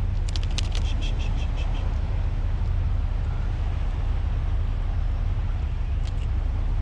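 Steady low rumble of wind buffeting the action-camera microphone on open water, with a quick run of about eight sharp clicks about a second in and a few more near the end.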